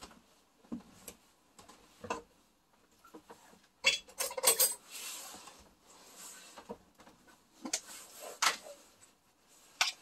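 Clinks and knocks of kitchenware being handled: scattered taps, a busier clatter about four seconds in, and a few more knocks near the end.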